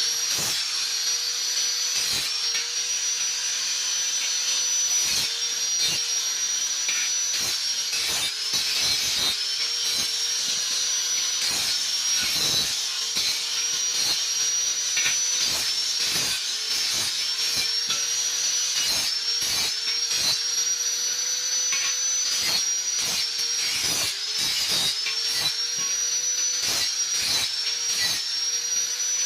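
Abrasive cut-off saw (chop saw) running with a steady whine as its disc cuts hollow steel tubing. The pitch dips and climbs back every couple of seconds as the blade is fed into the metal and eased off, with a rough grinding crackle over it.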